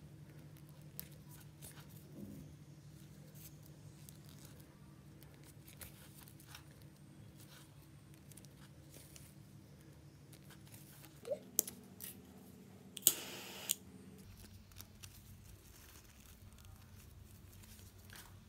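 Faint handling noise of yarn and a crocheted handle with a metal ring: soft scattered clicks and rustles over a low steady hum. A few sharper clicks come about eleven seconds in, and a short scratchy rustle follows about two seconds later.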